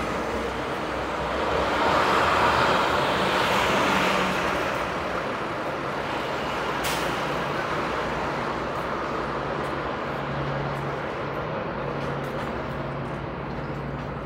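City shuttle bus pulling in to the curb and idling, its engine swelling over the first few seconds and then settling into a steady low hum, with a brief hiss about seven seconds in and road traffic behind.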